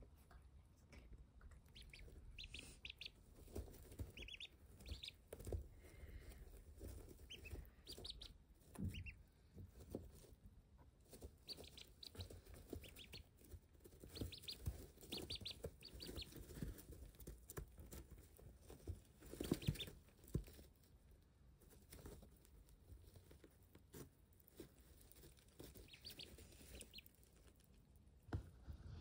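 Ducklings peeping softly in scattered runs of short, high peeps, with low rustling and shuffling as they move about in wood-shaving bedding.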